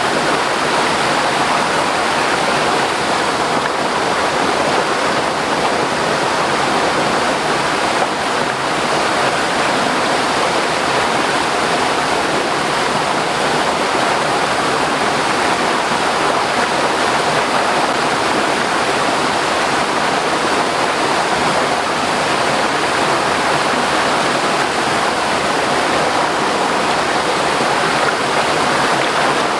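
Steady, loud rushing of water, with no breaks or distinct events.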